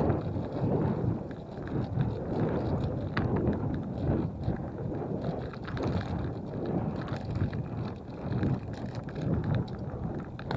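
Wind buffeting the microphone while riding a bicycle: an uneven, gusting low rumble.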